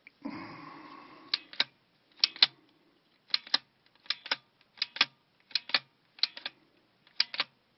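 Bally electromechanical pinball score reel stepping through its numbers, each step a sharp double click, about eight steps in a row after a brief fading rustle at the start. It is stepping freely without sticking, now that its stretched return springs have been replaced.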